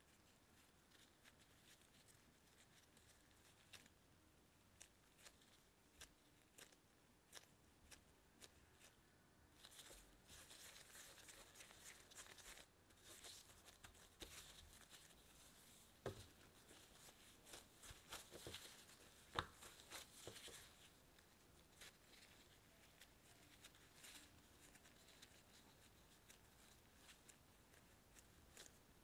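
Near silence with faint crinkling rustles and soft clicks from disposable-gloved hands shaping and sealing squid-ink bread dough around cheese, busier in the middle.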